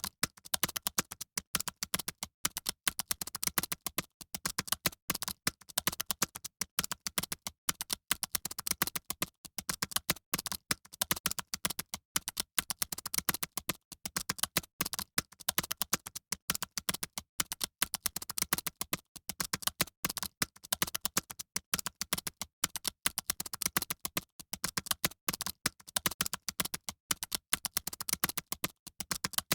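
Fast typing on computer keyboards, as in an exam hall during a typing test: rapid keystroke clicks running on without a break.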